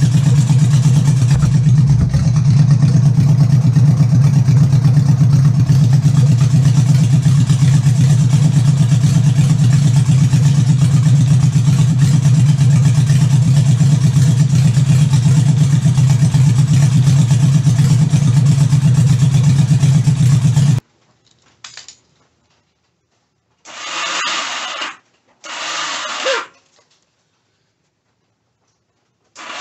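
1978 Honda Goldwing's flat-four engine running steadily after a carburetor rebuild, then the sound cuts off abruptly about twenty seconds in. After it come three short separate bursts of about a second each.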